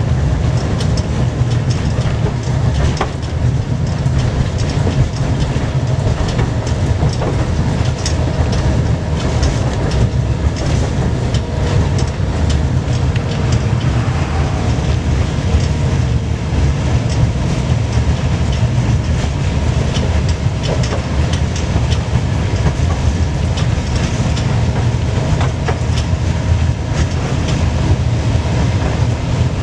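Tram running along the rails, heard from inside the car: a steady heavy low rumble with frequent clicks and rattles from the wheels on the track, and a faint whine for a few seconds about halfway through.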